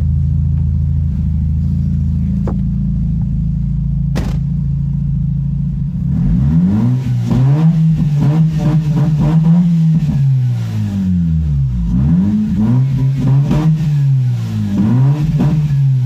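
A 2005 Mazda RX-8's twin-rotor Renesis rotary engine idling steadily through its exhaust, then, about six seconds in, being revved several times, its pitch climbing, holding and falling back between revs.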